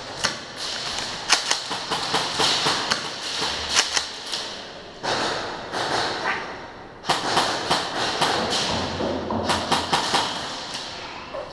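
Airsoft guns firing: rapid, uneven volleys of sharp clacks, with two short lulls near the middle.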